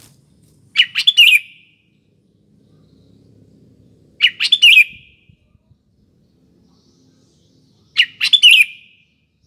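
Sooty-headed bulbul (kutilang) singing three short, loud phrases, each about three and a half seconds apart.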